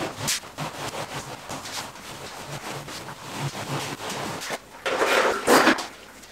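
Long-handled brush scrubbing and rubbing across a ceiling, with a louder burst of scrubbing about five seconds in.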